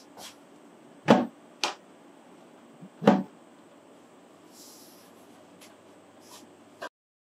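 Wooden cabinet door on concealed (European-style) hinges being shut and opened by hand: two loud knocks as the door closes against the cabinet, about a second and about three seconds in, with a sharper click between them and lighter clicks afterwards.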